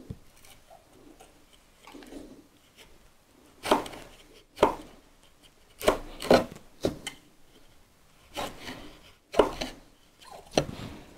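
Wood chisel paring solid wood to trim a joint to the line: about eight short, sharp cutting strokes at irregular intervals, beginning a few seconds in, after quieter scraping.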